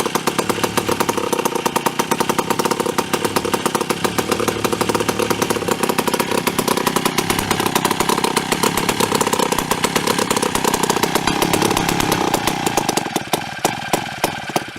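A vintage 1940s Precision chainsaw's two-stroke engine running steadily with fast, even firing. Near the end it slows and starts to falter as it is choked to shut it off, since the saw has no kill switch.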